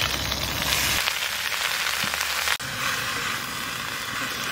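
Chopped leafy greens sizzling in hot mustard oil in a metal wok, with a steady frying hiss that drops out for an instant about two and a half seconds in.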